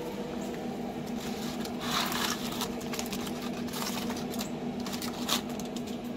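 Steady low hum of the pellet smoker's fan running, under the crinkle of aluminium foil and a few clicks of metal tongs as a foil-wrapped rack of ribs is lifted and set down on a wooden board, with a rustle about two seconds in and sharper ticks near the end.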